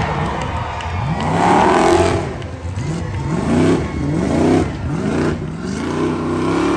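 Off-road tough truck's engine revving hard and falling back about five times in a row, the pitch sweeping up and down with each rev.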